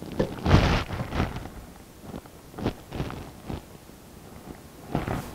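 Handling noise from gluing up birch plywood shelf panels: a series of short knocks and rustles as the wood-glue bottle is squeezed and set down on the bench and the panels are fitted together, the loudest about half a second in.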